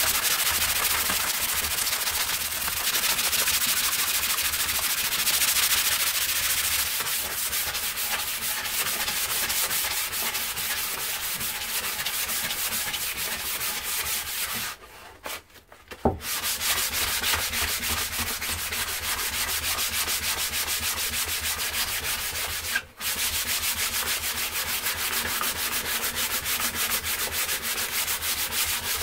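Hand sanding of a newly shaped oak handle: sandpaper rubbed quickly back and forth along the wood in rapid strokes, with a pause of about a second and a half halfway through and a brief break about three-quarters of the way through.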